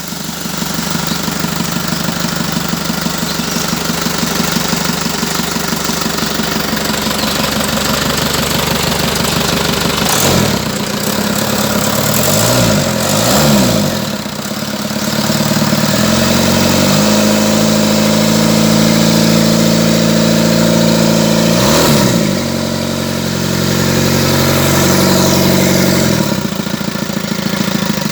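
Mitsubishi 120 PS engine running at a steady idle, then revved up and down a few times about ten seconds in, held at a higher steady speed for about ten seconds with one more quick rev, and dropping back to idle near the end.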